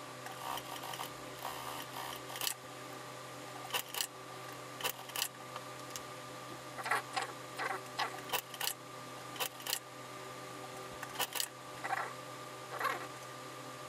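Fabric of a pair of suit trousers being handled and smoothed at an industrial sewing machine: scattered short rustles and light clicks over a steady low electrical hum, with no stitching.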